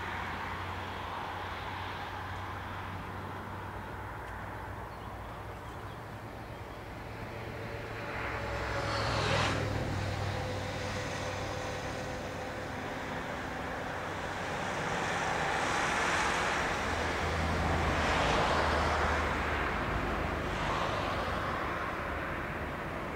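Road traffic passing: a vehicle goes by quickly about nine seconds in, and a longer, louder swell of passing traffic builds and fades between about fifteen and nineteen seconds, over a steady low hum.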